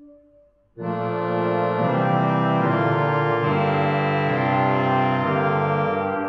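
1889 Merklin pipe organ playing: a soft held note dies away into a brief pause, then about a second in loud full chords come in suddenly and are held, shifting from chord to chord.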